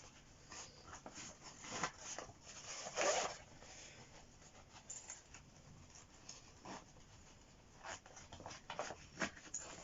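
Rustling and scraping of a fabric tool bag being handled and opened, in scattered short bursts, the strongest about three seconds in.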